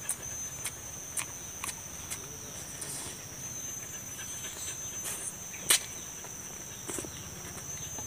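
Steady high-pitched drone of insects, with scattered sharp clicks and smacks of chewing and tearing roast chicken, the loudest a little past halfway.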